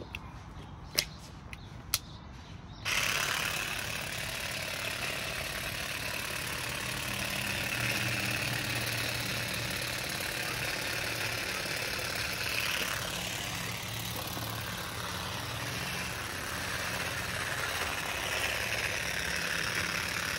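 A few sharp clicks, then the Parkside PGSA 4 A2 cordless shrub shears start about three seconds in and run steadily, their blade buzzing as it trims thuja foliage.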